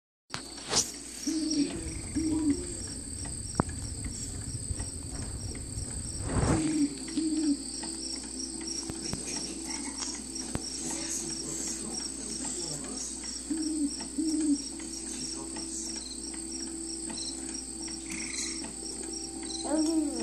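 Electronic nature-sound track from a baby's bouncer mobile: steady cricket chirping, with pairs of soft owl-like hoots three times. Low handling rumble in the first six seconds.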